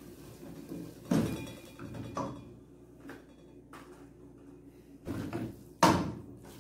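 Wooden spoon stirring and knocking against an aluminium pot of shredded chicken filling: a few separate thuds and scrapes, with the sharpest knock near the end.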